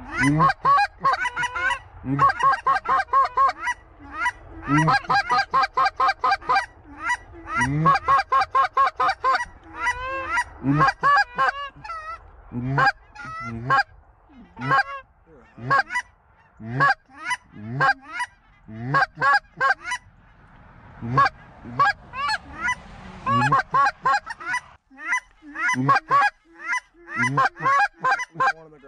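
Goose calling on short-reed goose calls: rapid honks, clucks and moans from several callers at once, dense for the first ten seconds, then spaced out at about one a second with brief pauses. This is hunters calling to a flock of geese in the air.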